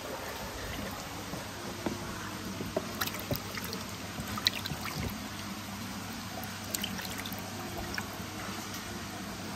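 Water trickling steadily, with scattered small splashes and knocks, the sharpest about halfway through.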